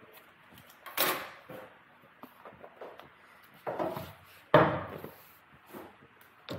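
Knocks and clatters of tools and sheet metal being handled on a workbench during layout work. There are three louder knocks, about one, three and a half and four and a half seconds in, the last the loudest, with a few light clicks between them.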